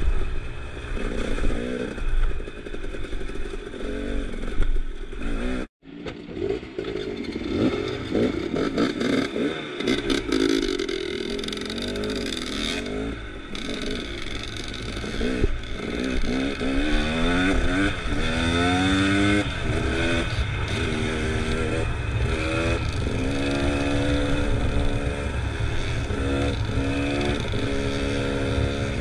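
Dirt bike engine running under way on a rough trail, its pitch rising and falling again and again as the throttle opens and closes. The sound drops out completely for a moment about six seconds in.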